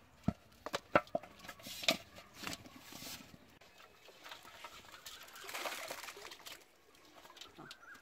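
Small fish and a net being shaken out into an aluminium basin: a run of sharp taps and knocks, the loudest about one and two seconds in. Later a brief rushing noise as a basin of fish is tipped out.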